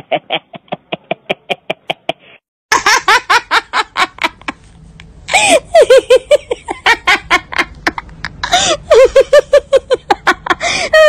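Several bouts of hearty laughter, one after another: rapid rhythmic 'ha-ha-ha' pulses. A brief pause about two seconds in, then more laughter that sounds brighter and fuller.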